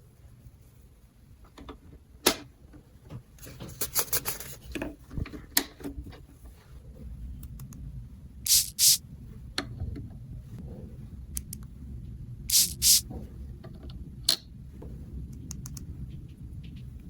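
Small plastic dollhouse toy parts being handled: scattered clicks and taps, a quick run of ticks, and two pairs of short, sharp scrapes about eight and twelve seconds in.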